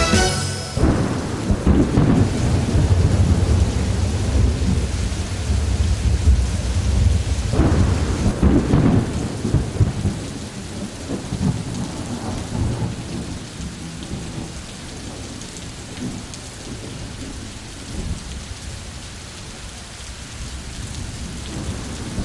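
Thunderstorm sound effect: steady heavy rain with deep rolling thunder, a sharp crack about seven and a half seconds in, then the thunder dies down and the rain goes on more quietly.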